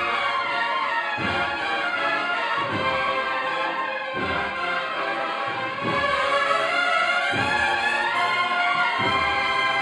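A band playing a slow Holy Week processional march, the brass carrying the melody over a deep beat that falls about every second and a half.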